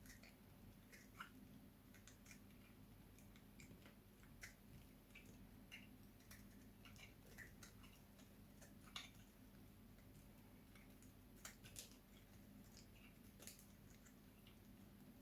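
Faint, irregular crisp clicks and crunches of a knife cutting into soap, with a few sharper snaps scattered through.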